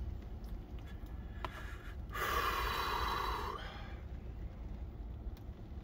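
A person's long, breathy exhale lasting about a second and a half, a couple of seconds in, over a steady low rumble.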